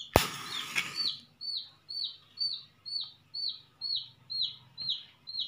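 A match struck on a matchbox: a sharp scrape and a flaring hiss lasting about a second at the start. Then a bird's short, falling chirp repeats steadily about twice a second.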